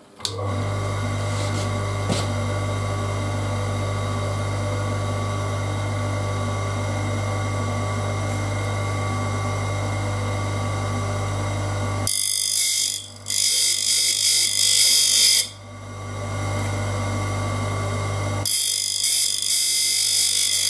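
Electric saw-blade sharpening machine switched on, its grinding-wheel motor running with a steady hum. Twice, for about three seconds in the middle and again near the end, a loud harsh grinding hiss as the wheel grinds the teeth of a circular saw blade.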